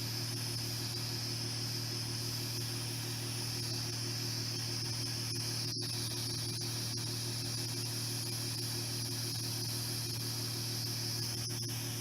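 Steady hiss over a low, even hum from a rope cutter with its cutting end removed, used as a heat tool to shrink heat-shrink tubing onto a crimped battery cable.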